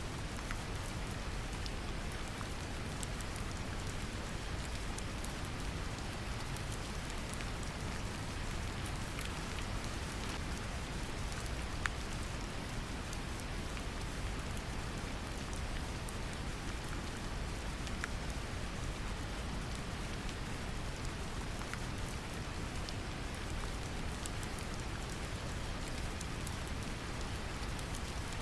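Steady brown noise mixed with gentle rain: a deep, even rumble with light raindrop pattering on top.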